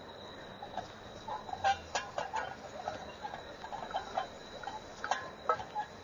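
Irregular light clicks and taps of a utensil against a pan as chopped coriander is mixed into crushed potato and prawns.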